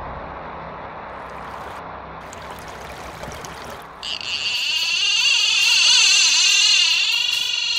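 A quiet, fading tail of the preceding music, then about halfway through a loud, high buzzing sound effect with a wavering pitch starts.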